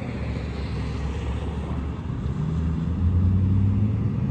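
Car engine running with road noise as the car drives along; the engine note rises and gets louder about two and a half seconds in.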